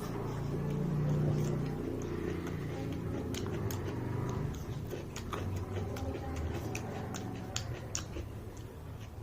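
Mouth sounds of someone eating mutton and rice: chewing with scattered soft clicks and smacks over a low background rumble.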